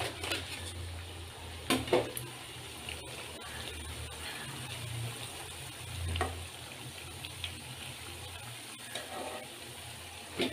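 Masala vadai deep-frying in hot oil in an aluminium kadai, a steady sizzle and bubbling. A metal spoon clinks against the pan a few times as the fully fried vadai are lifted out.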